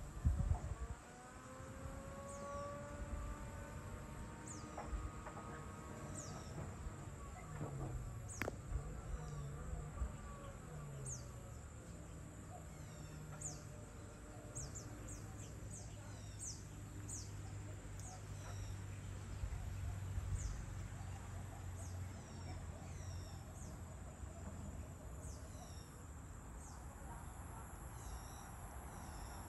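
Outdoor insect chorus with a steady high-pitched buzz, with many short, quick falling chirps from birds scattered throughout. A low steady hum sits underneath, and there is a single sharp click about eight seconds in.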